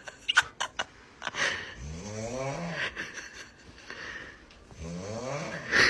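Someone snoring: two long snores a couple of seconds apart, each with a pitch that rises and then falls. There are a few short sharp sounds about half a second in.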